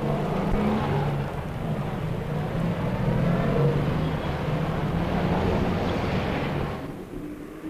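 Road traffic: car engines running as cars drive past, a steady hum that fades out near the end.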